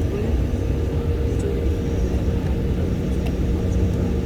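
Steady low rumble of an airliner cabin on the ground before takeoff, the jet engines running at idle with a constant hum.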